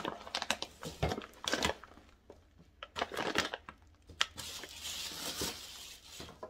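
Plastic bag of dry cat food crinkling as it is handled and turned over: a series of sharp crackles, with a longer rustle between about four and five and a half seconds in.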